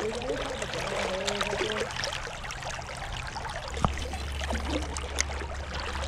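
Fast creek current rushing steadily. A sharp click comes just before four seconds in, and a steady low rumble joins soon after.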